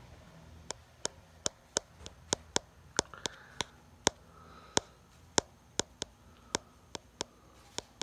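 Mondial Super Power 40 fan giving a series of about twenty sharp ticks, at first about three a second and then further apart, while its steady running noise has died away.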